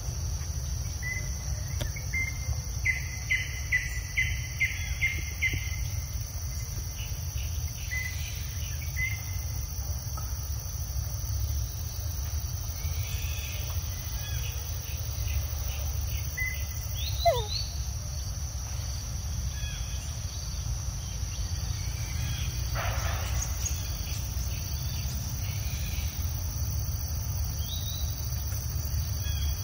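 Forest ambience: a steady high insect drone with bird calls over it. A few seconds in comes a run of about eight quick repeated notes, then scattered chirps and a falling whistle past halfway, over a low steady rumble.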